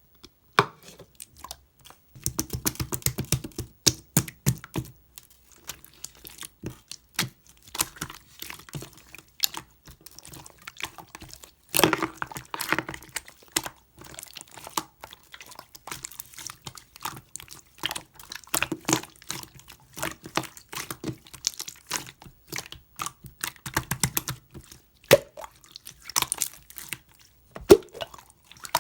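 Hands squishing, poking and stretching slime: a continuous run of sticky wet clicks, small pops and crackles, thicker in a few short spells.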